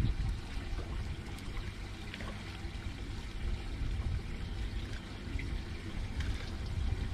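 Water lapping and trickling against a boat's hull.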